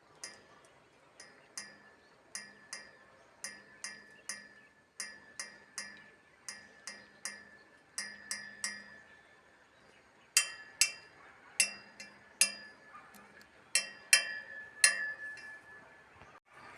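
A small glass or metal object struck lightly over and over, each tap ringing briefly with a clear tone, roughly two taps a second, louder and more ringing from about ten seconds in.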